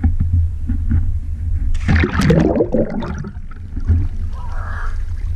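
A child jumping into a swimming pool: a loud splash about two seconds in, then water churning and sloshing close to the camera over a steady low rumble.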